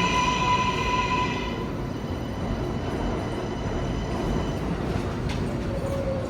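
New York City subway L train running in the station, with a high-pitched metallic wheel squeal in the first second and a half that fades away. A new steady tone starts near the end.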